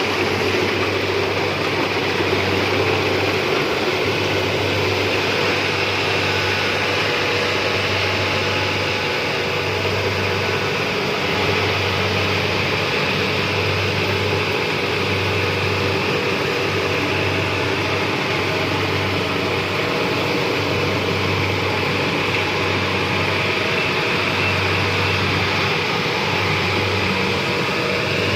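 Rice combine harvester running steadily at work, a loud, even machine noise with a low hum that swells and fades about once a second.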